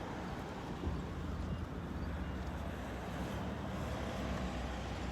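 Toyota Conquest 1.6 16V engine idling with a steady low exhaust rumble.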